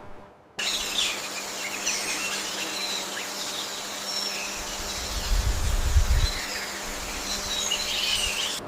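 Nature ambience: a dense high hiss of insects with short bird chirps over it, starting abruptly and cutting off near the end, with a low rumble about midway.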